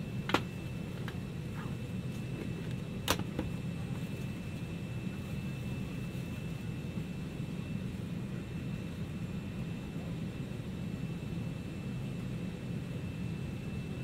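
Steady cabin hum of a parked Airbus A320-200: a low rumble of air and machinery with a thin, steady high tone. Two sharp clicks stand out, one just after the start and one about three seconds in.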